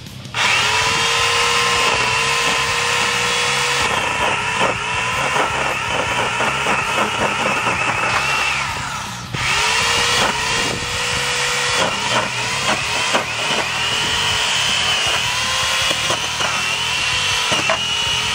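Corded electric pole chainsaw running with a high motor whine, its pitch dipping briefly each time the chain bites into the clamped denim jacket. It winds down about halfway through and starts up again a moment later.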